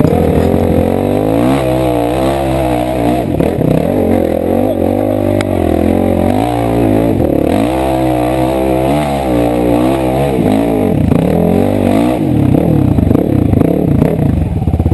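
Dirt bike engine being ridden hard, its pitch rising and falling again and again as the throttle opens and closes and the gears change.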